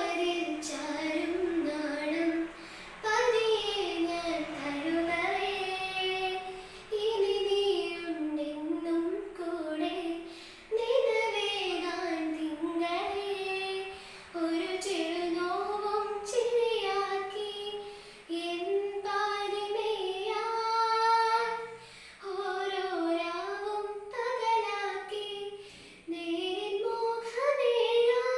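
A teenage girl singing solo, unaccompanied, in phrases of a few seconds with short breaths between them.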